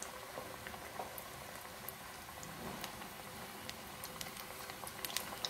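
A methi vada (fenugreek-leaf fritter) deep-frying in hot oil: a faint, steady sizzle with scattered small crackles and pops, a few more near the end.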